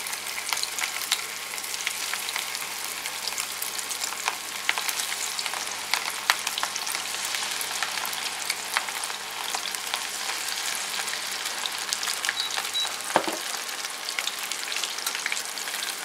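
Batter-coated vegetable fritters deep-frying in hot oil in a steel kadai: a steady, dense sizzle full of small crackles and pops. A faint low hum underneath stops with a sharp knock about thirteen seconds in.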